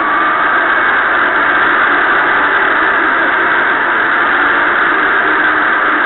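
Hockey arena crowd cheering a power-play goal: a loud, steady, sustained roar, heard through a muffled AM radio broadcast.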